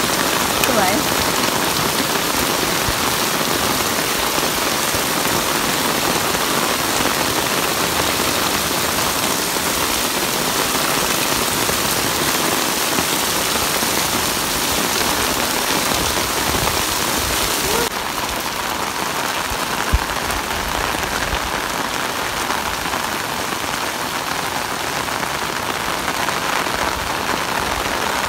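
Heavy rain falling steadily onto a paved road and garden plants: a dense, unbroken hiss of rain. It drops slightly in level a little past halfway, and a single sharp tap stands out a couple of seconds later.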